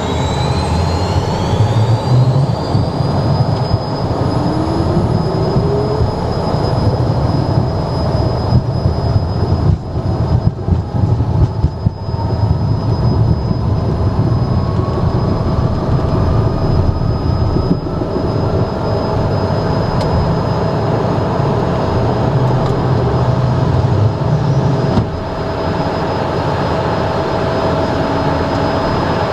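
Cessna Citation M2's twin Williams FJ44 turbofan engines heard from inside the cockpit at high power around takeoff. A whine rises in pitch over the first few seconds and then holds steady over a constant deep rumble, and a second tone climbs slowly through the middle. A few knocks come about ten seconds in.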